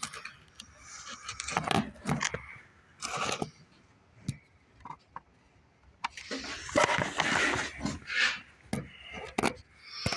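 Irregular scraping and rubbing with a few short knocks, busiest in the last few seconds: hand work cleaning out a mouse nest.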